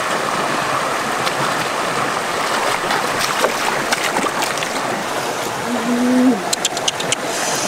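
Shallow rocky stream rushing steadily over small rapids. A brief low tone sounds about six seconds in, followed by a few quick sharp clicks near the end.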